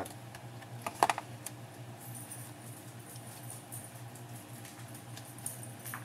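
Small clicks and taps of needle-nose pliers and fingers working tiny cable connectors into their sockets on a Dell Mini 10v netbook motherboard. A sharp cluster of clicks comes about a second in, then lighter scattered ticks.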